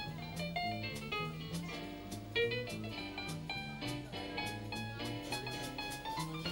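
Dixieland jazz band playing a swing tune, with the piano in front over a bass line, guitar and drums keeping a steady beat.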